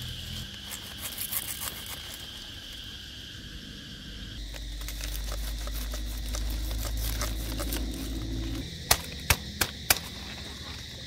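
Insects chirping steadily, with a low rumble through the middle and four sharp knocks in quick succession near the end.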